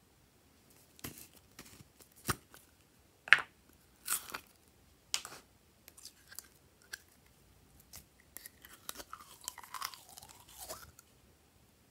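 Store-bought slime in a small plastic tub: a few separate sharp plastic clicks and pops as the cap comes off. Then a run of wet, crackling squelches as the slime is squeezed out into a tray.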